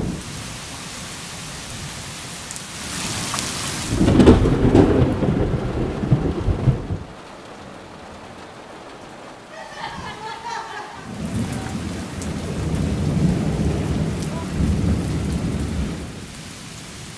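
Heavy tropical-storm rain falling steadily, with two long rolls of thunder, one starting about four seconds in and another from about eleven seconds on.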